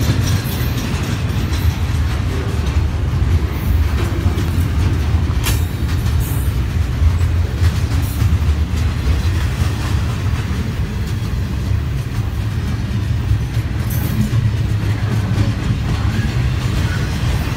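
Double-stack container freight train rolling past at close range: a steady heavy rumble of wheels on rail, with a few sharp knocks.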